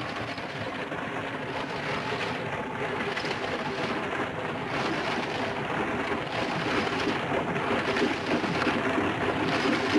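Underground coal-mining machinery running: a steady, dense mechanical din with a faint regular pulse about every second and a half, growing a little louder.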